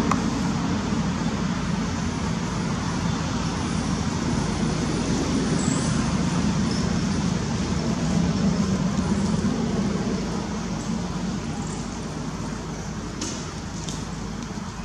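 Steady low rumble of outdoor background noise, like distant traffic, easing slightly near the end.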